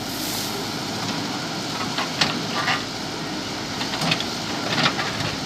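JCB backhoe loader's diesel engine running steadily while it digs, with a few sharp knocks and clatters.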